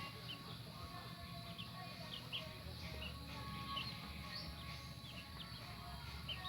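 Young chicks peeping, a scatter of short high cheeps, over faint background music.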